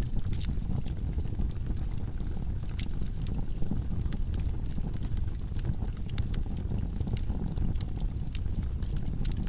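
Logs burning in a fireplace: a steady low rumble of flames with frequent sharp crackles and pops scattered irregularly throughout.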